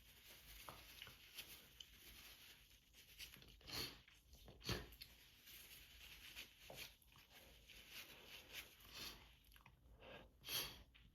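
Faint crinkling and rustling of a paper tissue being handled at the nose, with a few sharper crackles about four seconds in, again a second later, and near the end.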